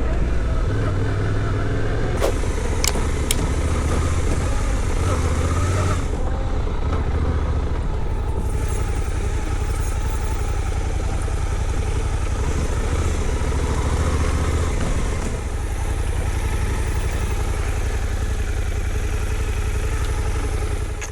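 Motorcycle on the move, likely a Suzuki V-Strom 800DE, its engine running under a steady heavy rumble of wind on the camera. A few sharp clicks come a couple of seconds in.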